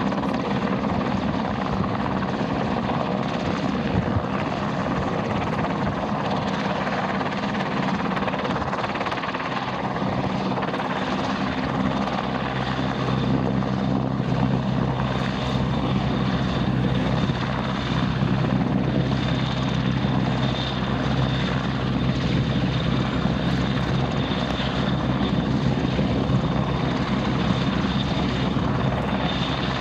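Royal Navy Merlin HM2 helicopter's three turboshaft engines and rotor running loud and steady as it flies a low display. A faint high turbine whine comes in about halfway through.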